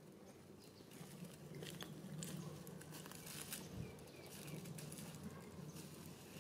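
Faint crackling and rustling of dry leaf litter as monkeys move over it, with a low hum underneath.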